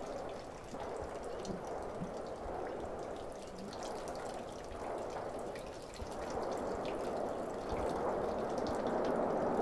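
Running water, a steady rushing and splashing.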